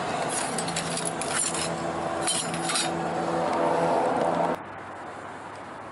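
Clinking and crunching of burnt debris, broken glass and charred metal scraps in fire ash, over a steady low hum. The sound drops off abruptly about four and a half seconds in to a quieter background.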